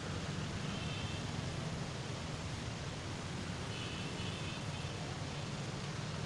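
Steady low rumble of distant road traffic. Two faint, brief high-pitched chirps come about a second in and again about four seconds in.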